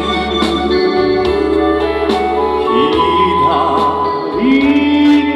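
Live trot song accompaniment: keyboard with an organ-like sound, a bass line and a steady drum beat, with a male voice holding and wavering on the end of a sung line between phrases.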